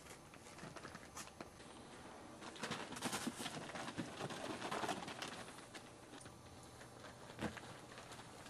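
Chihuahua puppies and a Maltese dog moving about on a blanket: soft scuffling and pattering paws with scattered light taps, busiest from about two and a half to five seconds in.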